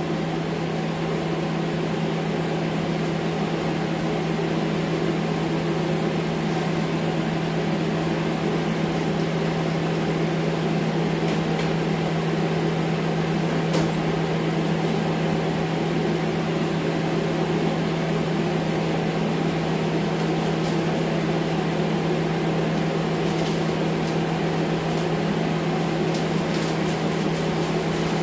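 Air scrubber fan running: a steady low hum with an even rush of moving air, and a few faint knocks from debris being handled.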